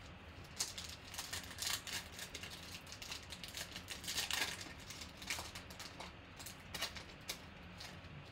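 Foil wrapper of a Panini Prizm football card pack crinkling and tearing as it is opened and the cards are pulled out: a run of crisp crackles and rustles, busiest in the middle.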